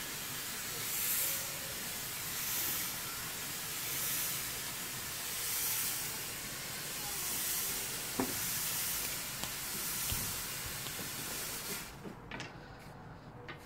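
Fog machine hissing steadily as it pushes out smoke, swelling and easing about every second and a half, then cutting off suddenly near the end.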